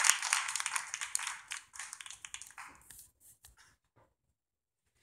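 Scattered handclapping from an audience, fading away over about three seconds into near silence.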